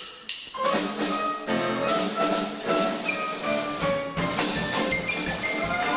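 Orchestra playing cartoon-score music live, a quick passage of many short, sharply struck notes.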